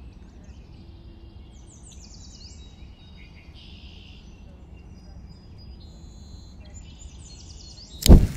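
Birds chirping with many short, high, quick calls over a steady low background hum, then a sudden loud hit near the end.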